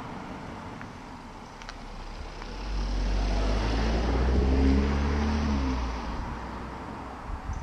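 A car driving past on a paved road: its engine and tyre noise swells over a couple of seconds, is loudest about halfway through, drops a little in pitch as it passes, and fades away.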